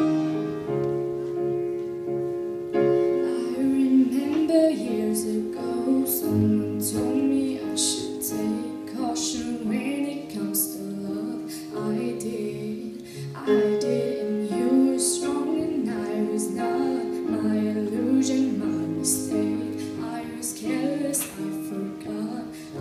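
A song: a female voice singing over held, sustained chords.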